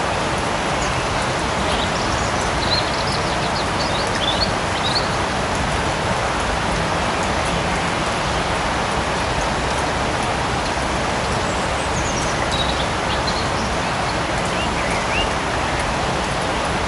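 Steady light rain falling in a forest, with a few short high chirps a couple of seconds in and again about three-quarters of the way through.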